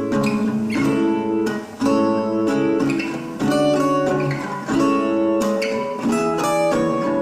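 Acoustic guitar playing, strummed and plucked chords struck about once a second.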